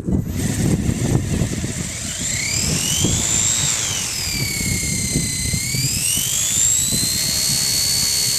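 Blade mCPX micro RC helicopter's brushless motor whining as it spools up, the pitch rising, dipping and rising again, over wind buffeting the microphone.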